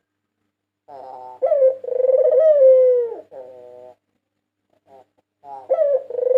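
White barbary dove (puter putih) cooing: a soft lead-in, then a long loud coo that wavers and falls away at its end, followed by a quieter trailing note. A second coo of the same pattern begins near the end.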